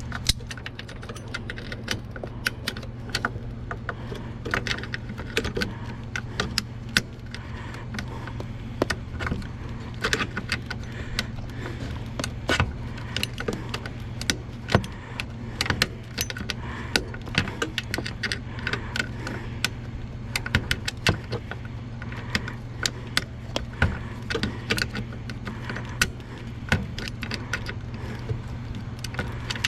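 Pliers clinking, scraping and knocking against metal in irregular bursts as a stubborn, awkwardly placed nut is worked loose on a utility vehicle, over a steady low hum.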